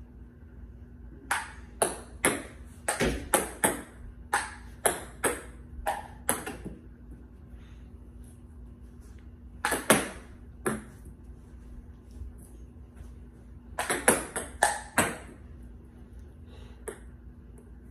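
Table-tennis ball clicking sharply as it is struck with a paddle and bounces on the table: a quick run of about a dozen clicks, a pause, two more, then another short cluster near the end.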